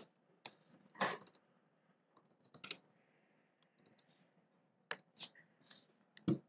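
Typing on a computer keyboard: scattered key clicks in short runs with pauses between them, and one louder click near the end.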